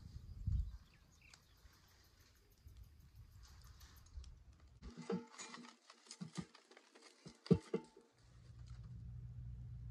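Clicks and knocks of a cast iron skillet being shifted and swirled on a wheel-rim wood fire, over the crackle of the fire. The clicks are densest in the second half, with one sharp clunk a couple of seconds before the end.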